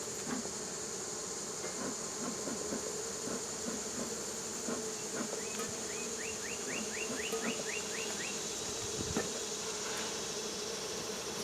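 Honeybees from an opened hive buzzing steadily in a massed hum, a disturbed colony that has been trying to sting. In the middle comes a short run of about a dozen quick high chirps, about four a second.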